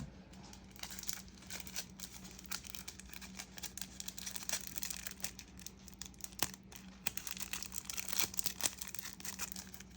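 Foil wrapper of a Japanese Pokémon card booster pack crinkling and tearing as it is handled and worked open, a run of small irregular crackles.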